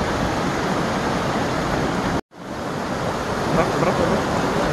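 Mountain creek water rushing over rocks, a loud steady noise, broken by a brief total dropout a little over two seconds in.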